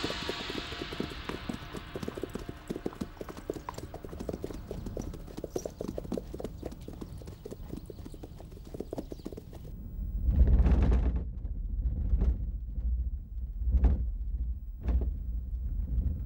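Several horses' hooves clip-clopping at a walk, many overlapping steps, for the first ten seconds or so. After that, deep low rumbling and a few heavy thuds take over.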